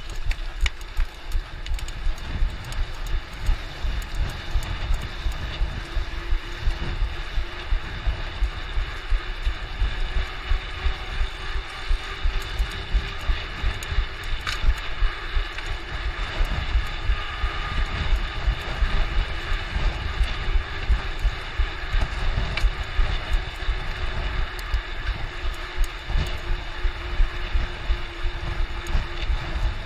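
Mountain bike ridden fast over rough trail: a steady rumble of tyres and wind with frequent knocks and rattles from the bike over bumps.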